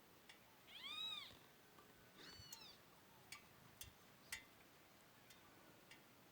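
A cat meowing faintly twice, each meow rising then falling in pitch, followed by a few sharp clicks.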